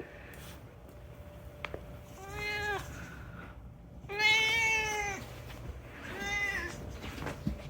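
Domestic cat meowing three times, a second or so apart, the middle meow the loudest and longest. A short click comes just before the first meow.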